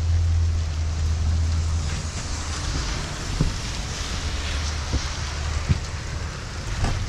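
Rain and wind on a helmet-mounted camera's microphone: a steady hiss over a low rumble, with a few light knocks.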